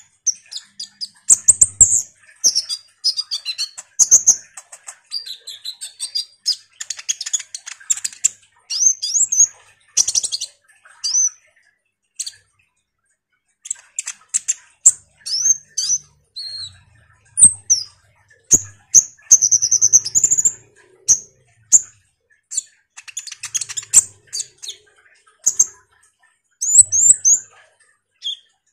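Kolibri ninja sunbird singing a long, fast, high-pitched chattering song of chirps, trills and rapid ticks, broken by one short pause about twelve seconds in.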